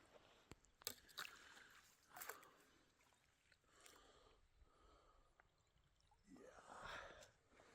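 Near silence with a few faint, scattered clicks and ticks, and a short swell of rustling noise about six seconds in.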